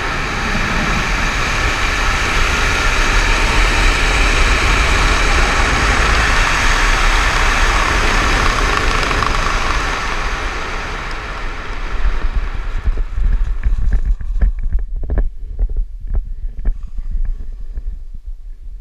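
Wind rushing over an action camera's microphone during parachute canopy flight, swelling over the first few seconds and then easing off on the landing approach. After touchdown about ten seconds in, the rush gives way to irregular bumps and rustles of gloved hands gathering the canopy and its lines.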